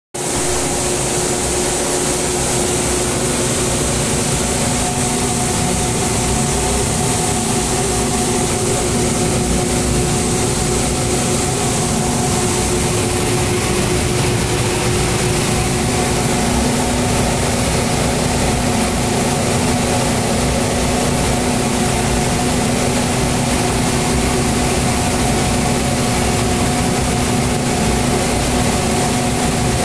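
Steady mechanical hum with a few held tones over a broad hiss. It runs unbroken at one level, as from fans or other running machinery.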